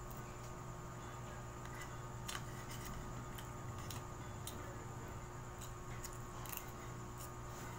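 Eating sounds: a few scattered soft clicks from chewing and from a spoon and fork against a plate, over a steady low hum.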